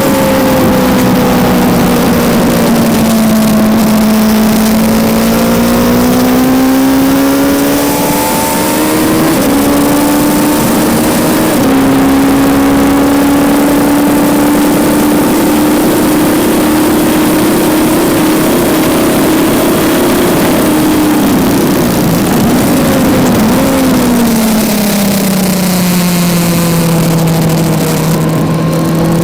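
Kawasaki Z900's inline-four engine at full track pace, heard from onboard with heavy wind rush. The engine note rises and falls with throttle and gear changes, holds high revs through the middle, then drops away near the end as the bike slows.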